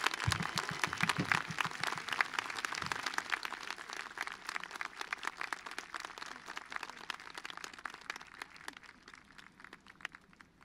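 Audience applauding, the clapping thinning out and fading away over several seconds.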